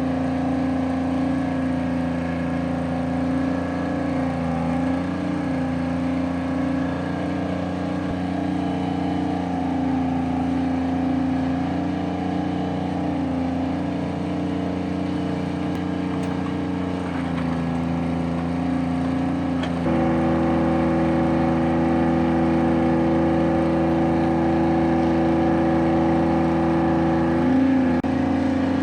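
An engine running steadily. Its note shifts slightly about two-thirds of the way through, then steps up louder and higher a few seconds later.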